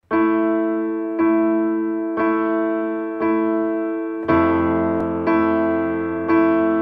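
Background music: slow sustained keyboard chords, a new chord struck about once a second, with a deeper bass part joining about four seconds in.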